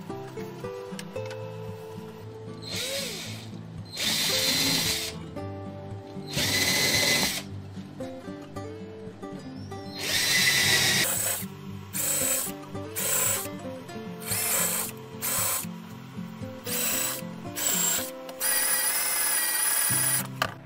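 Cordless drill running in a dozen or so short bursts, its motor whining as it bores countersunk holes into thin pine strips, with a longer run near the end.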